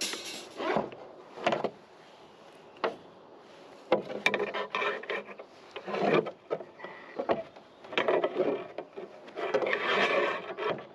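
Steel rebar being bent into stirrups on a manual stirrup bender: a few separate knocks, then denser irregular scraping and clatter of metal from about four seconds in.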